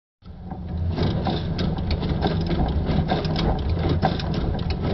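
Brother sewing machine running at speed, stitching Velcro strip onto fabric: a fast, even clatter of stitches over a low motor hum. It starts a moment in and builds up over the first second.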